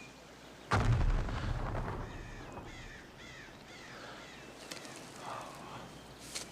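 A sudden explosion about a second in, with a deep rumble that fades over a second or two. After it come faint, repeated bird calls.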